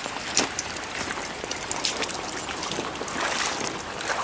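Splashing steps wading through ankle-deep floodwater on a garage floor, over a steady wash of water noise, with a sharper splash about half a second in and another near the end.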